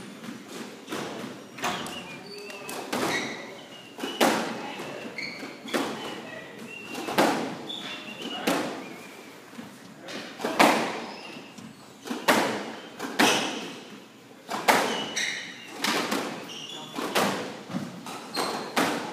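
Squash rally: a squash ball struck by racquets and hitting the court walls, sharp echoing hits about one a second. Short high squeaks come between the hits, typical of court shoes on the hardwood floor.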